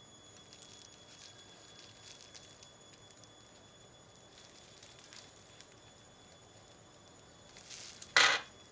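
Faint scraping and rustling of small hand tools working at a small plastic cassette-mechanism gear, then one sharp loud snap near the end: the plastic gear cracking in two as it comes off.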